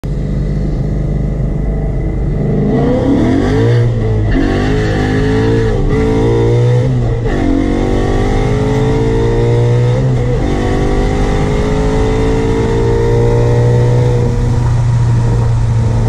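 2012 Ford Mustang Boss 302's 5.0-litre V8 accelerating hard, heard from inside the cabin, its pitch climbing in each gear and dropping at each of several upshifts before settling into a steady cruise. It runs smoothly, with no misfire to be heard.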